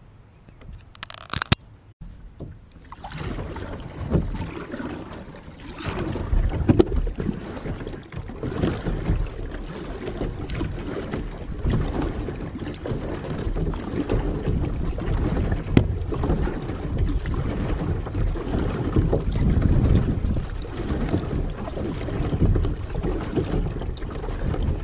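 Water sloshing and splashing around a kayak as it is paddled, uneven in level, with a few sharp knocks scattered through it. It starts after a couple of quiet seconds broken by a few clicks.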